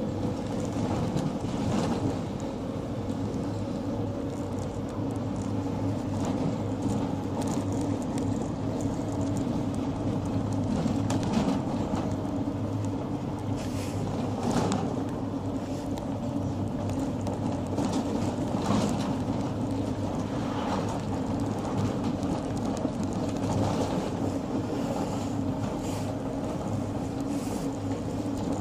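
Mercedes Sprinter minibus on the move, heard from inside the cabin: a steady engine and road hum, with a few short knocks and rattles here and there.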